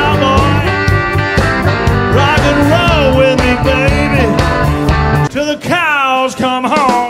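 A rock song with singing over guitar, bass and drums; the bass and drums drop away for a moment about five seconds in, leaving the voice and guitar nearly alone before the band comes back in.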